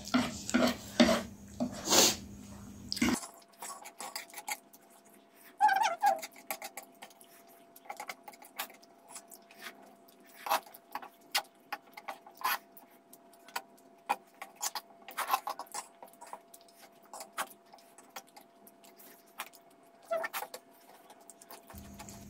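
Chopsticks and a metal fork clicking and scraping on ceramic plates while noodles are eaten: many short, irregular clinks with quiet gaps between.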